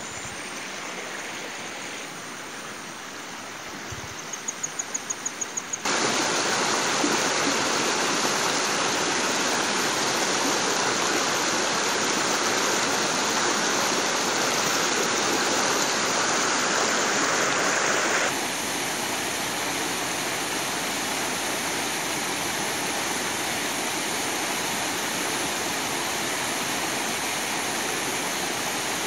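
Shallow rocky mountain stream rushing and splashing over stones, a steady water noise that gets louder about six seconds in and drops back somewhat around eighteen seconds in.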